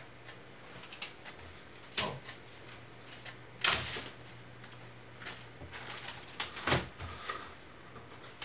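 Scattered knocks, clacks and rustling of objects being handled and rummaged through off to the side, as someone looks for a CD. The two loudest knocks come a little before halfway and about three-quarters of the way through.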